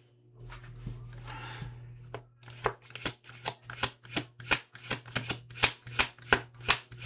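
A deck of tarot cards shuffled by hand: a soft rustle of sliding cards, then a steady run of sharp card slaps, about three a second.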